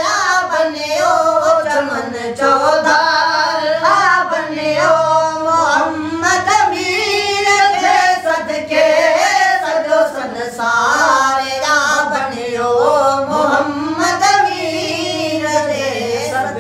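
A Sindhi naat, a devotional song in praise of the Prophet Muhammad, sung by a boy's voice leading with two men joining in, in long, winding melodic phrases.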